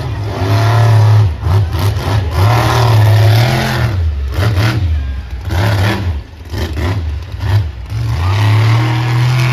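Monster truck engine revving in repeated surges, its pitch rising and falling, with brief lulls about six and seven and a half seconds in.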